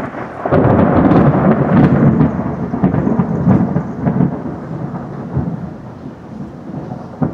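Thunder from a close lightning strike: a sudden loud crash about half a second in, then a deep rolling rumble that slowly fades over the next several seconds.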